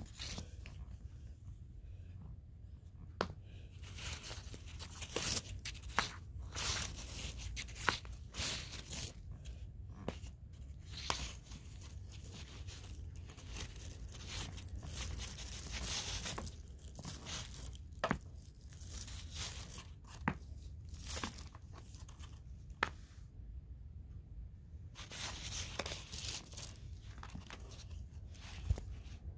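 Scratchy rustling in irregular bursts close by, with sharp clicks every few seconds, from a domestic cat moving about and mouthing or licking.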